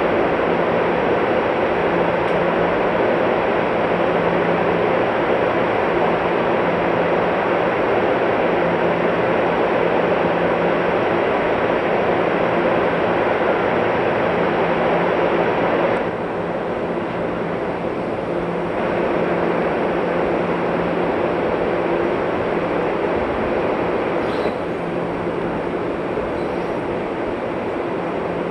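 Steady hum and rushing noise of a Puyuma tilting train (TEMU2000) standing at the platform, with a low steady drone throughout. The level drops slightly about 16 seconds in.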